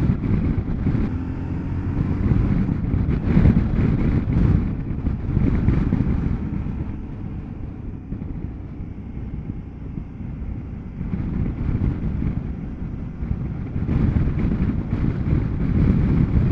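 Motorcycle engine running at road speed, mixed with wind rushing over the microphone. It is louder in the first few seconds and again near the end, and dips in the middle.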